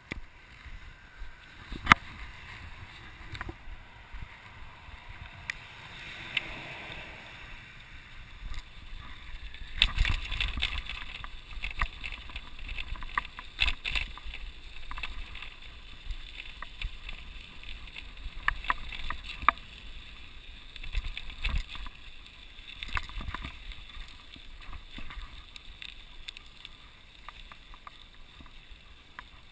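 Mountain bike ridden over snow and slush: steady tyre noise with frequent knocks and rattles as the bike and its handlebar-mounted camera jolt over the rough surface, the loudest about two seconds in.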